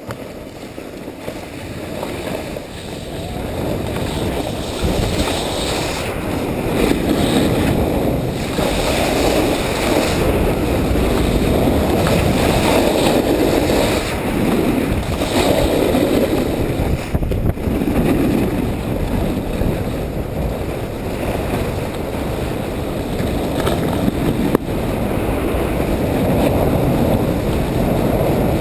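Wind rushing over an action camera's microphone while skiing downhill, a low buffeting rumble that builds over the first few seconds and then holds, mixed with the hiss of skis sliding on snow.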